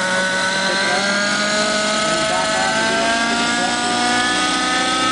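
Nitro (glow-fuel) engine of a radio-controlled model helicopter running at high speed with its rotors turning. Its pitch climbs slowly and steadily.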